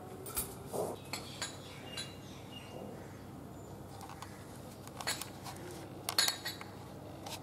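Steel kitchenware clinking and tapping: several light clinks in the first two seconds, then a louder few about five and six seconds in.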